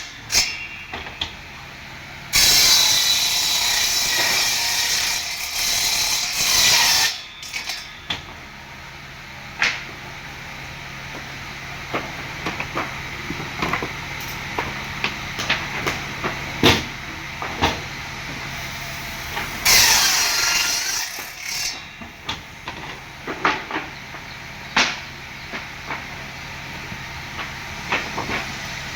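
Woodworking power tool running against wood in two loud stretches, one of about four and a half seconds early on and a shorter one about two thirds of the way through, with scattered knocks and taps of wood being handled in between over a steady low hum.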